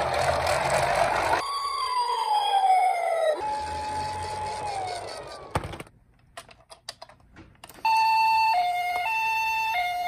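Toy ambulances' electronic sirens switching between patterns: a falling wail, then a steady tone, then a short pause with a few clicks. About two seconds before the end, the Japanese ambulance two-tone hi-lo siren starts, alternating high and low about every half second.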